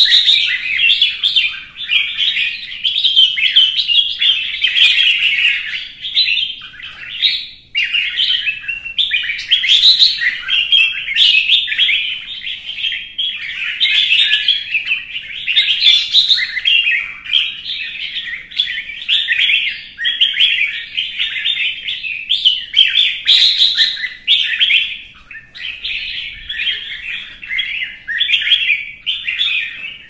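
Red-whiskered bulbul in fired-up competition song: a loud, rapid, unbroken stream of varied chirping phrases.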